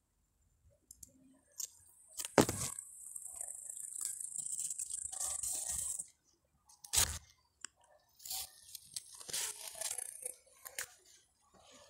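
Pepper plant leaves rustling and scraping against the handheld phone as it is pushed in among the foliage, with two sharp handling knocks, about two and a half and seven seconds in.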